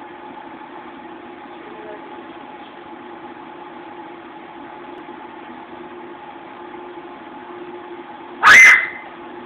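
Steady low hum with a faint hiss. About eight and a half seconds in, a short, very loud sudden sound cuts in briefly and is the loudest thing here.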